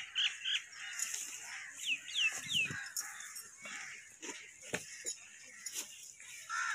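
Birds calling: short chirps, then three quick downward-sliding calls in a row about two seconds in, with scattered faint clicks and rustles.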